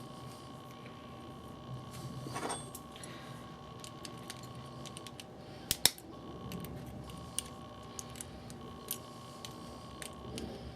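Small metal parts of a double-hung window sash lock clicking and tapping as they are handled and fitted back together, with a sharper click a little under six seconds in.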